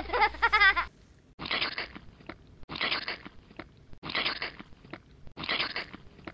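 Crunching, munching sound effect in four short bursts about a second apart, standing for the toy figures eating their toy food. It follows a brief high, squeaky cartoon-like voice at the start.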